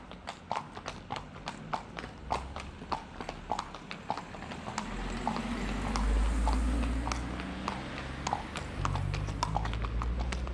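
Hooves of two horses on an asphalt street: a steady, even clip-clop at about three strikes a second. A low rumble from a car driving past swells in the middle and fades near the end.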